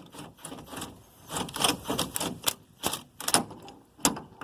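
Irregular metal clicks and clinks from a bearing puller working a stuck old wheel-bearing race off a car's rear hub spindle, with a few louder knocks in the middle.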